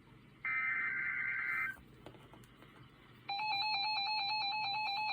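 Emergency Alert System SAME header: a burst of warbling data tones lasting just over a second, then a pause. About three seconds in, the steady EAS two-tone attention signal starts and holds, rapidly pulsing as its two tones beat against each other.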